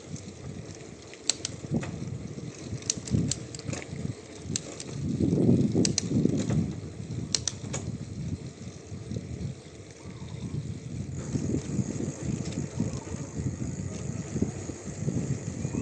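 Bicycle riding on a country road: low rumbling tyre and wind noise, with scattered sharp clicks and rattles from the bike. About eleven seconds in, a steady high hiss joins in.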